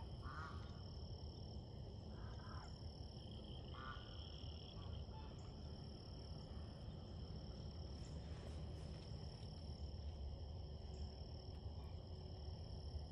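Domestic geese giving a few short, faint honks in the first few seconds over steady high-pitched insect trilling and a low background rumble.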